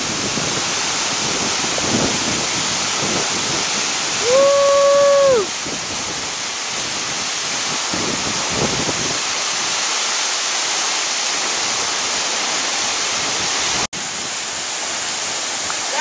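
Waterfall crashing into a shallow plunge pool: a steady, dense rush of water. About four seconds in, a person's voice gives one long held call lasting about a second.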